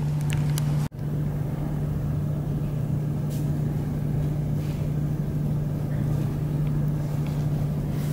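Steady mechanical hum with one constant low tone running under it, like a machine or engine running without change; the sound drops out briefly about a second in.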